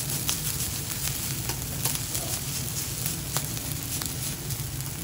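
Rice and egg sizzling on a hot steel teppan griddle while two metal spatulas scrape and chop through it, the blades striking the plate with sharp clicks now and then, over a steady low hum.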